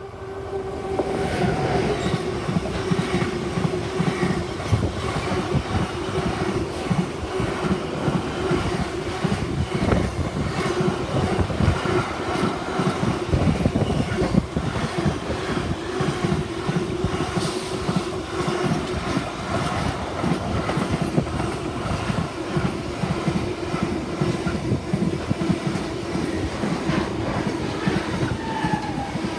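Bombardier Traxx class 186 electric locomotive passing close, followed by a long train of container flat wagons rolling by. It swells up about a second in, then holds a steady wheel rumble with rhythmic clickety-clack and a steady hum underneath.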